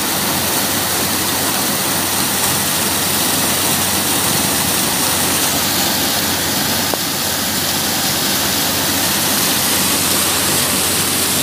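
Hot spring water rushing and splashing steadily into a rock pool.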